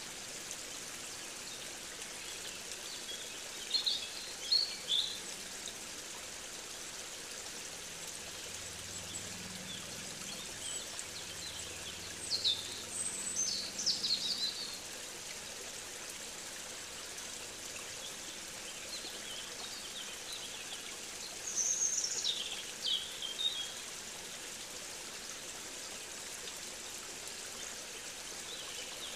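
Steady rush of a running stream, with a bird singing three short, high phrases: about four seconds in, around twelve to fourteen seconds, and around twenty-two seconds.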